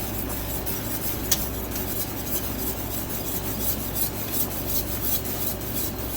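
Spoon stirring and scraping in a pot of sugar syrup held at a rolling boil, the bubbling of the boil under it, with one sharp click about a second in. A steady low hum runs beneath.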